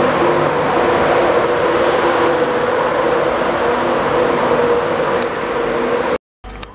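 InterCity 225 express train rushing through the station at speed, a loud steady rush of wheels and air that carries on after the last vehicle has gone by, easing slightly before it cuts off abruptly near the end.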